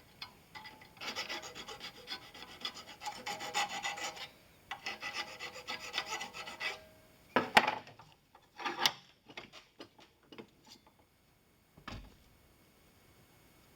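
A hand file being worked quickly back and forth over sheet brass in two long runs of strokes. These are followed by a few separate knocks and clacks of metal pieces being handled.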